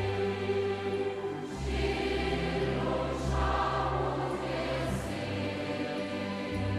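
Background music of a choir singing held chords over a low bass, the chord changing every second or two.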